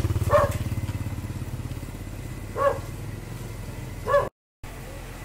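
Small diesel engine of a tractor-driven concrete mixer chugging steadily, louder in the first couple of seconds and then settling. A dog barks three times, short and sharp, and the sound cuts out for a moment right after the third bark.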